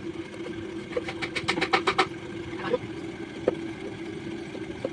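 A steady motor hum, with a quick run of short clicks about a second in and a few single clicks later.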